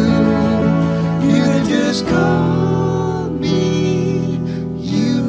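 Acoustic guitars strumming with a man singing, live band music.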